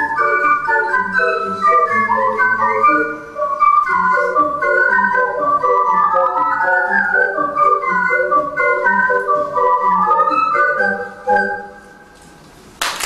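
An ocarina ensemble plays a lively polka in many parts, with clear whistle-like notes over a rhythmic low line, then closes on a final note about eleven seconds in. After a short pause, applause breaks out at the very end.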